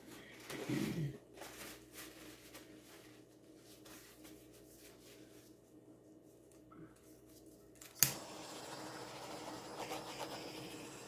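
A handheld butane torch clicks alight about eight seconds in, then its flame hisses steadily as it is played over wet acrylic pour paint. Near the start there is a short low sound that falls in pitch.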